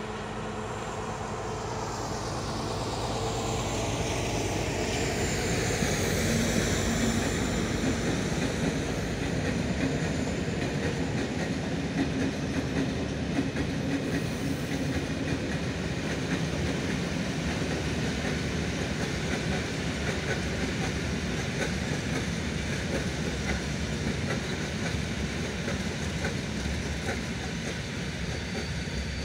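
Diesel shunting locomotive's engine running as it hauls a long train of hopper wagons past, its note fading within the first few seconds. Then the steady rumble and clickety-clack of the wagons' wheels over the rails, with some faint high wheel squeal early on.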